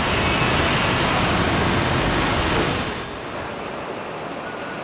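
City street ambience: steady traffic noise, which drops to a quieter background hum about three seconds in.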